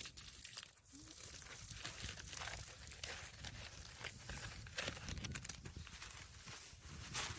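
Crinkling and rustling of a plastic bag as a dahlia tuber is handled, in a run of short rustles over a low rumble.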